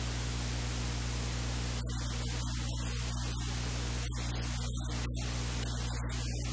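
Steady static hiss over a low, steady electrical hum: recording noise with no other sound standing out.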